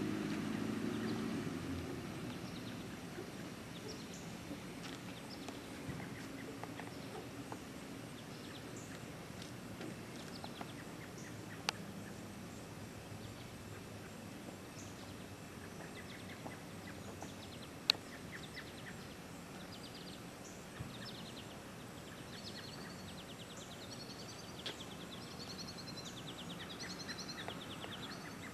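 Outdoor ambience with birds singing: scattered chirps, then a bird repeating a fast trill over the last several seconds. A vehicle's engine hum fades away over the first couple of seconds, and two sharp clicks sound midway.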